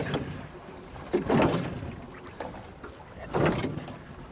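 Small outboard motor being pull-started by hand: two pulls on the starter cord, about a second in and again about three and a half seconds in, with the engine turning over but not catching.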